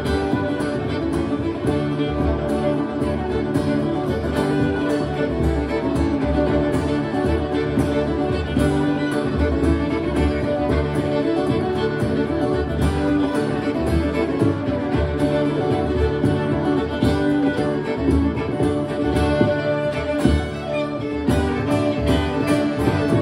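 Two fiddles playing a lively Celtic reel together over guitar accompaniment, with a steady, even pulse underneath.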